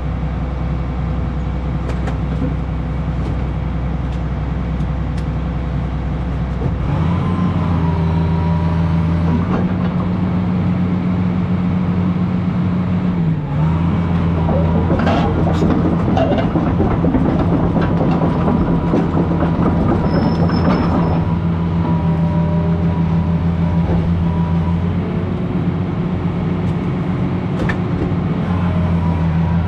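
20-ton-class excavator's diesel engine running, stepping up from idle to higher revs about seven seconds in, with a steady hydraulic whine over it. Through the middle, a run of sharp cracks and crunches as it breaks into the house.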